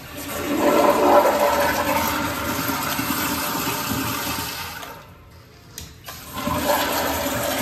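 Commercial toilet's sensor-operated flushometer valve flushing, a loud rush of water into the bowl that dies away about five seconds in. About a second later it flushes again after its manual override button is pressed.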